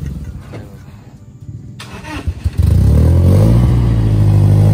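Motorcycle engine running low, then about two and a half seconds in the throttle opens and it runs loud and steady as it sets off with the last load of harvested oil palm fruit.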